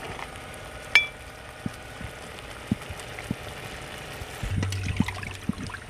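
A metal ladle clinks once with a short ring against the clay cooking pot about a second in, followed by a few soft knocks, as ingredients are stirred into the simmering curry. A low steady hum comes in near the end.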